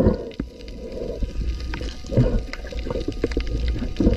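Underwater sound picked up by a submerged camera: water gurgling and sloshing with the diver's movements over a low rumble, with a sharp thump at the start and scattered faint clicks.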